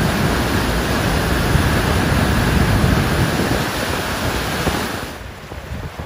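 Loud, steady rushing of a large volume of white water pouring through a hydroelectric plant's concrete bypass channel, diverted there by a machinery failure at the plant. About five seconds in, the sound drops to a quieter, duller rush.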